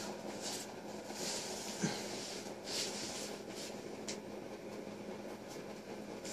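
Quiet room tone with a steady low hum, soft rustling and shuffling movement on the floor, and a light knock about two seconds in.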